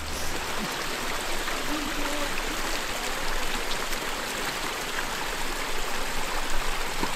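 Small creek running, a steady rush of water.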